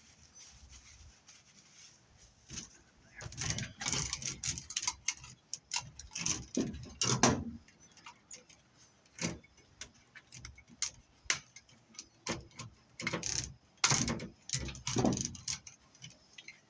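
Irregular clatter of small scrap pieces being handled and set down: a string of sharp clicks and knocks that starts about two and a half seconds in, with busy clusters partway through and near the end.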